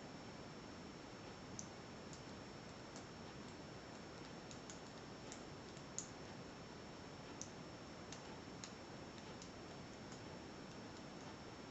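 Faint, irregular small clicks of a metal lock pick working the pin stack of a Master Lock 140 padlock under tension, over a steady low hiss.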